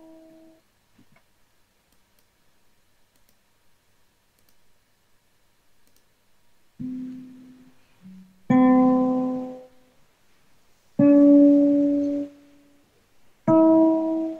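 Guitar played one note at a time, heard through a video call: after a long quiet stretch, a soft note, then three clear plucked notes about two and a half seconds apart, each left to ring and each a step higher than the last, the start of a beginner's do-re-mi note exercise.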